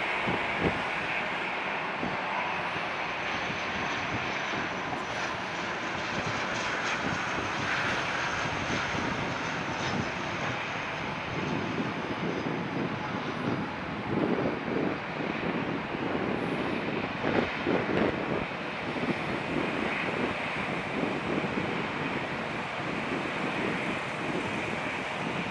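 Twin turboprop engines and propellers of an ATR 72 on final approach, a steady drone with a faint whine, continuing as the aircraft comes in to land. There is irregular rumbling in the lower range in the middle.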